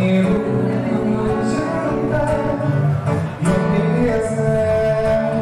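Live samba: a strummed acoustic-electric guitar with a man singing over it and hand percussion striking sharp accents in a steady rhythm.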